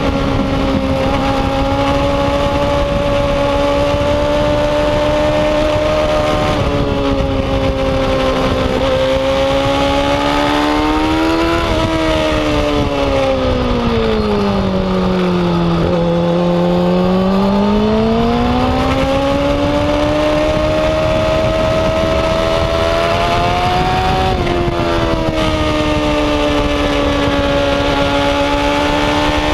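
Yamaha R6's EDR-built inline-four engine running hard at high revs on track. The engine note steps down briefly with a gear change about a quarter of the way in. It then climbs, falls smoothly to its lowest pitch around the middle, and climbs back, with another brief step down late on.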